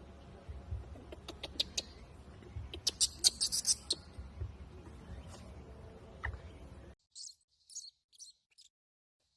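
Baby macaque giving short, very high-pitched squeals in quick clusters, a burst about three seconds in and a few more near the end.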